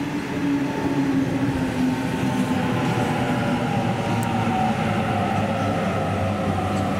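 Electric suburban train pulling into the station. Its motor tones fall slowly in pitch as it slows, over steady running noise from the wheels.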